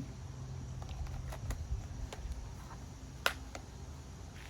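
A few light clicks and taps from seasoning containers being handled, the sharpest about three seconds in, over a low steady hum that stops about a second and a half in.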